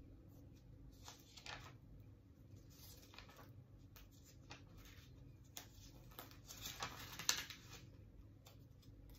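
Faint rustling and light clicks of small things being handled by hand, with a sharper click about seven seconds in.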